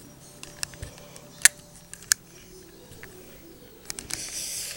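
Plastic clicks and light handling noise from a Transformers action figure as its axe is worked out of its hands, with two sharp clicks in the middle and a brief scraping rustle near the end.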